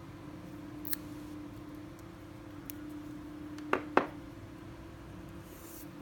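Sharp handling clicks from side-cutting pliers and monofilament fishing line: a light click about a second in, then two louder clicks close together about four seconds in, over a steady low hum.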